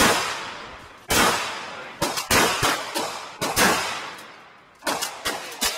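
Gunshots fired in a quick string, about one a second with some close pairs, each crack trailing off in a long echo.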